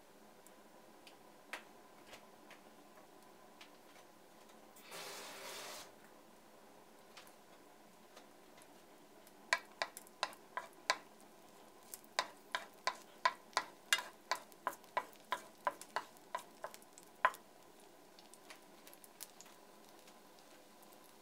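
Garlic slices dropped into sesame oil in a nonstick frying pan with a brief hiss about five seconds in, then a wooden spatula pushing them around, tapping and clicking against the pan two to three times a second for several seconds.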